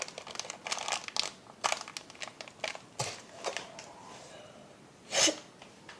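A food bag being torn open wider and crinkled by hand, a quick run of crackles that dies down after about three seconds. A single short cough about five seconds in.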